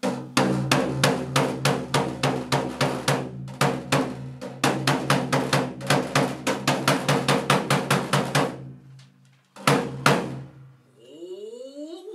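Japanese hayashi drums struck in a fast, quickening run of beats, about four to five a second, with a short break about four and a half seconds in; the run dies away, one more stroke follows, and a rising sliding tone comes near the end.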